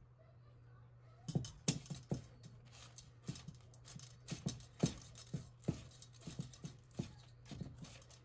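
Chicken cubes being dredged by hand in flour and breadcrumbs in a stainless steel pot: irregular soft taps and pats, about two a second, starting about a second in, over a low steady hum.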